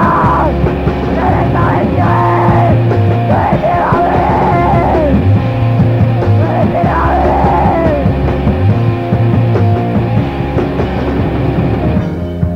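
Rock music from a band's demo tape: a bass line stepping between sustained low notes under a melody line that bends up and down in pitch.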